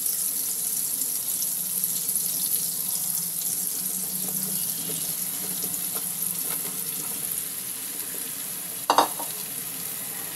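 Butter sizzling and frying in a non-stick kadhai, the sizzle carrying on as quartered button mushrooms go into the pan. A short, loud clatter about nine seconds in.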